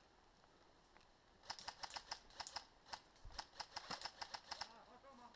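Quick, irregular sharp clicks, several a second, starting about a second and a half in after a quiet start.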